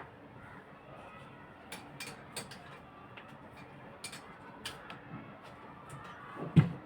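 Scattered light clicks and taps of handled tools or parts, with one louder knock near the end.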